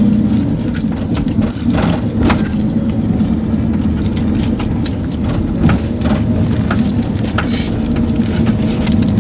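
Steady engine and road rumble of a moving van, heard from inside the cabin, with scattered short clicks and crinkles throughout.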